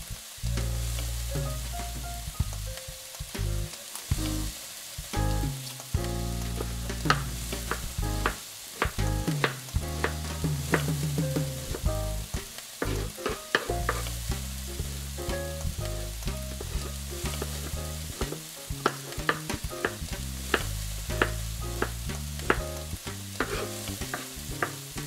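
Chef's knife striking a cutting board as an onion is sliced and diced, in quick uneven chops that grow frequent from about a quarter of the way in, over the steady sizzle of mild Italian sausage frying in a pan.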